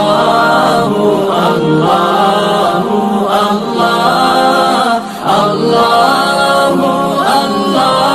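Voices chanting an Islamic zikr a cappella, the repeated praise of Allah sung in long, flowing phrases with a short break about five seconds in.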